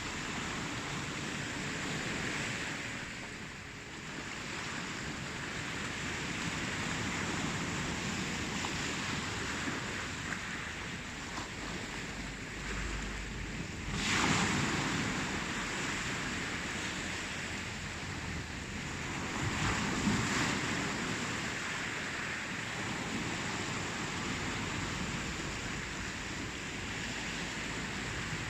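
Ocean surf: a steady wash of waves, with a wave breaking sharply about halfway through and a smaller one a few seconds later.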